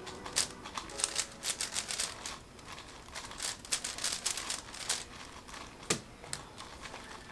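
Plastic speedcube being turned fast, its layers clicking and rattling in quick, irregular runs of turns, with one sharper knock about six seconds in.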